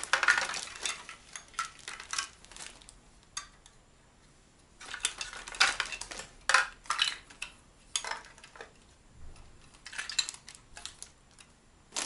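Dishes and cutlery clinking and clattering in short bursts of sharp knocks, with a quiet pause about three to five seconds in.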